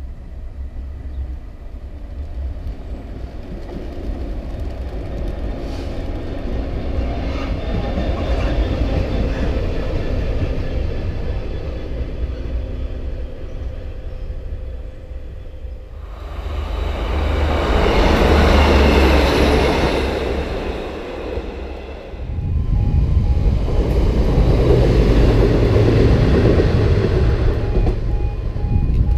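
Class 66 diesel freight locomotive and its train running through a station: a steady low engine rumble that builds to a loud rush as it passes, about two-thirds of the way in. Then a level crossing warning alarm sounds in short regular pulses over a loud low rumble.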